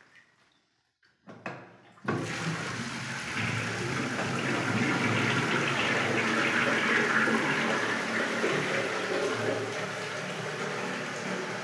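Wall-mounted plastic flush cistern emptying through its down-pipe into a ceramic squat toilet pan. A short knock comes about a second and a half in, then from about two seconds in water rushes loudly and steadily into the pan.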